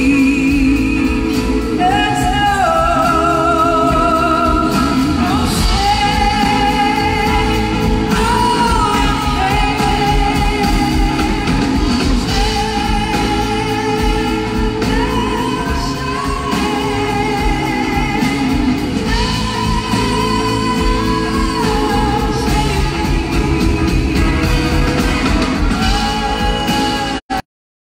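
Live blues-rock band playing with a woman singing lead, her long held notes wavering with vibrato. The sound cuts out completely for a moment near the end.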